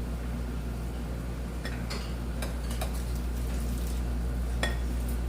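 A few light, scattered clinks of cutlery against dishes during a meal, the sharpest about a second before the end, over a steady low hum.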